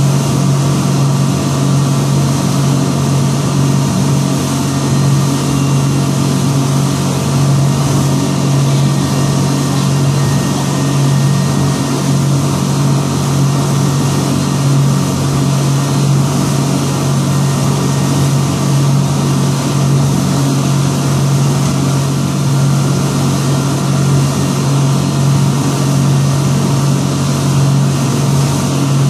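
Boat engine running at a steady speed: a constant low drone with an even hiss over it, unchanging throughout.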